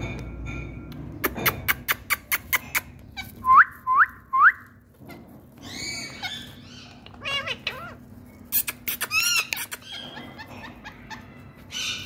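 Rose-ringed parakeets calling: three short rising chirps in quick succession, then harsher squawking calls, the longest and loudest coming after the middle. Early on there is a quick run of sharp clicks, a few a second.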